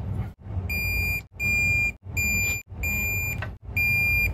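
Digital torque wrench beeping as each intake manifold bolt reaches its 200 inch-pound setting: five steady high beeps of about half a second each, over a low rattle of tool handling, with the sound dropping out abruptly between them.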